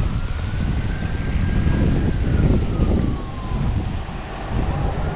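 Wind buffeting the microphone with a steady low rumble. Over it, a faint siren wail slowly rises and then falls away over about four seconds.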